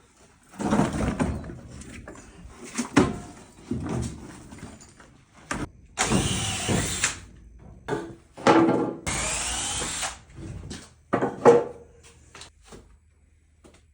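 Workshop clatter of tools and gear being handled, with two short bursts of a power tool running, about six and nine seconds in.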